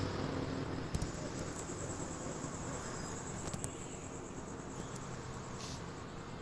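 Insects trilling steadily at a high pitch over a low rushing background noise that slowly fades.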